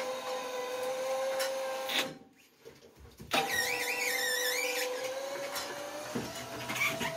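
Electric drive of a tracked (crawler) stair-climbing machine running under the load of a seated person, a steady motor whine. It stops for about a second a couple of seconds in, starts again, and its pitch rises slightly near the end.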